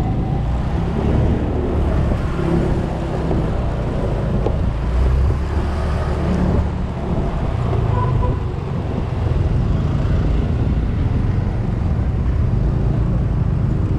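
Automatic scooter running while being ridden, its engine drone mixed with steady wind and road rumble on the action camera's microphone.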